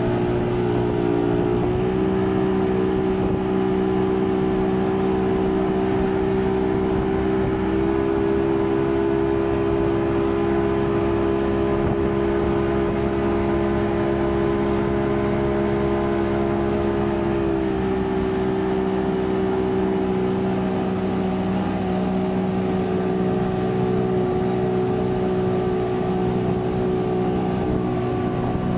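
Speedboat engine running steadily at speed while towing a banana boat, a droning note that steps up slightly in pitch about 2 and 8 seconds in and drops back a little past halfway. Under it, a rushing hiss of wake water and wind.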